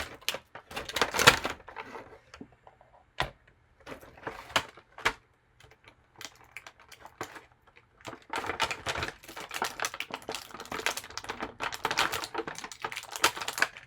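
Plastic blister packaging and covers being handled and pulled apart, a run of sharp clicks and crinkles in bursts, with a quieter lull in the middle.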